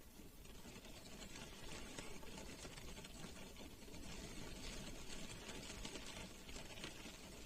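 Rain pattering on a car's roof and windows, heard from inside the cabin as a steady, dense tapping of drops.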